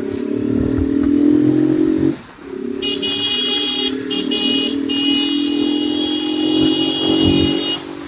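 Road traffic: motor vehicles running close by, with long steady pitched tones that dip once about two seconds in. From about three seconds in, a band of high steady tones joins them, broken twice.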